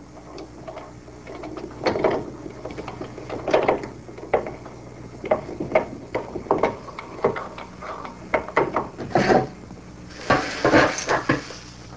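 Hand-cranked grain grinder grinding coarse-ground corn again at a finer setting: an irregular run of crunching, clicking and rattling as the kernels are cracked between the burrs, with a louder gritty stretch near the end.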